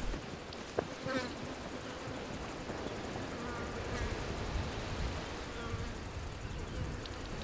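Insects buzzing steadily in the open dune grassland, with one sharp knock just under a second in.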